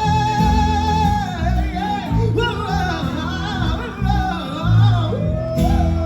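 Live reggae band music: a long note held with vibrato, then a fast, winding wordless melodic line over a steady bass and drum groove.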